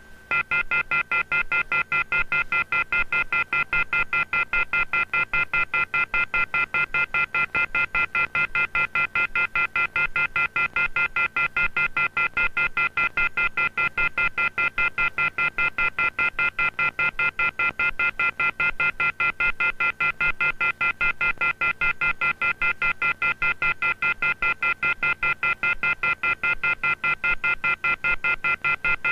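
Telephone receiver off-hook warning tone (the 'howler'): a loud, shrill chord of several high tones pulsing rapidly on and off. It starts a moment in and runs on without a break. It is the telephone exchange's alarm that a handset has been left off the hook, following the 'please hang up and try again' recording.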